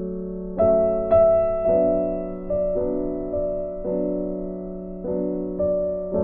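Background music: a slow, gentle piano melody with chords struck about once a second, each note ringing and fading.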